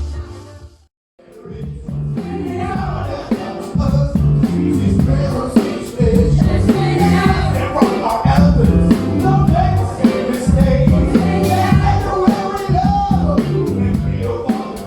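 Live band music with a singer over bass and a steady beat; the sound drops out briefly about a second in, then comes back in full.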